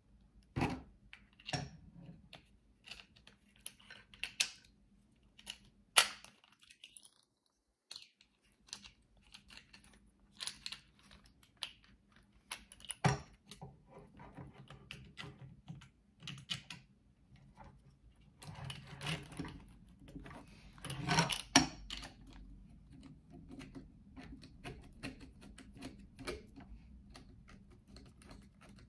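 Irregular clicks, taps and knocks from handling a plastic selfie stick as it is extended, adjusted and folded, with a few sharp louder clicks and a brief stretch of scraping. The clicking briefly stops about six seconds in.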